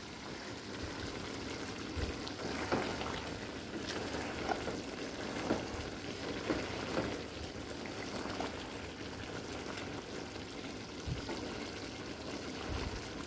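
Adobo sauce bubbling at a rolling boil around chicken feet in a pan: a steady bubbling hiss with scattered small pops, the dish now cooked.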